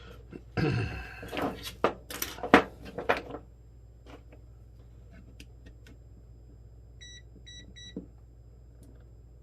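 Knocks and clatter of battery cells and pack parts being handled for the first few seconds, then, after a quiet stretch with a few faint ticks, three short electronic beeps from test gear about half a second apart.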